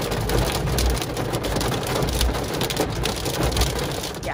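Hail drumming on a car's roof and windshield, heard from inside the cabin: a dense, continuous patter of many small sharp hits over a low rumble.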